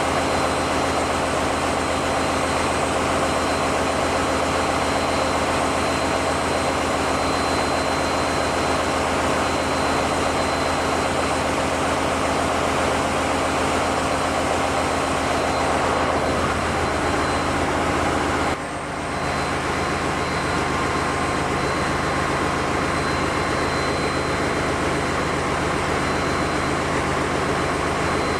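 Steady engine-room machinery drone from running diesel engines, loud and unbroken apart from a brief dip about two-thirds through.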